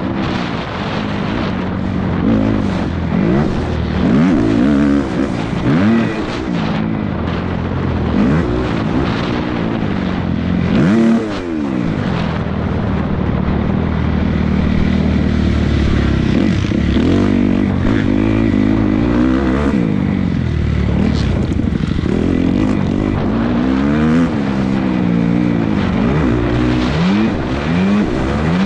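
Several motocross bikes racing, their engines revving up and dropping back again and again as they shift and brake, overlapping one another.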